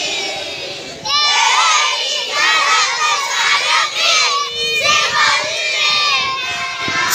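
Crowd of children shouting and cheering, many high voices overlapping, breaking out loudly about a second in.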